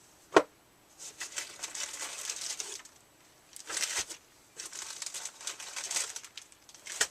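Packaging crinkling in several bursts as it is handled, with a sharp knock about half a second in and another just before the end.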